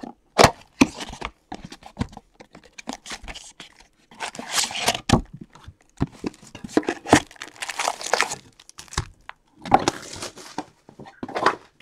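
Cardboard trading-card box being torn open and pulled apart by hand, with crinkling packs and cardboard scraping in irregular bursts of rustling and clicks.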